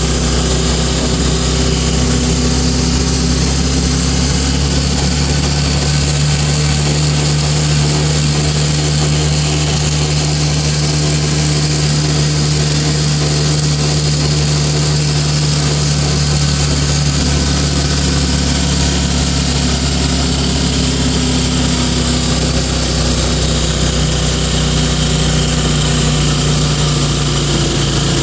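A motor tricycle's small motorcycle engine struggling as it carries the rider along: a loud, steady drone that barely changes in pitch.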